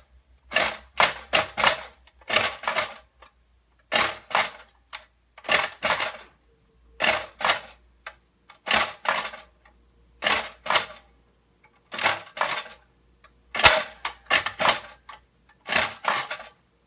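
Pressed-steel Kamkap toy cash register being worked key after key. Each key press gives a quick cluster of metal clacks as the drawer springs out and a price flag pops up. The clusters repeat about every second and a half.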